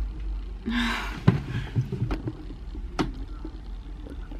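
Handling noise: a brief rustle, then a few sharp clicks or taps spread over the next couple of seconds, over a low steady hum.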